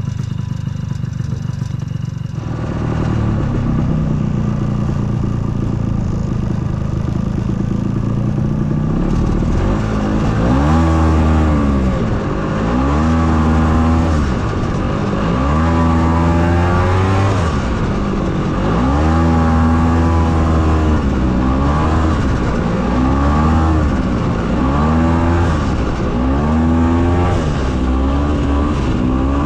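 Freshly rebuilt Ski-Doo Tundra snowmobile engine running under way, steady for the first several seconds, then revving up and easing off again and again, about every two to three seconds.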